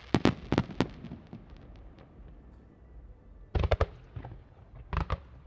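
Aerial firework shells exploding in the distance: a quick run of about four sharp bangs in the first second, a few fainter pops, then another cluster of bangs about three and a half seconds in and a couple more near the end.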